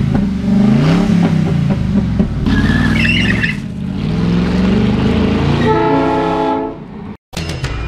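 A Ford Crown Victoria Police Interceptor's V8 engine revving up and down as the car pulls away. A steady horn blast lasts about a second near the end.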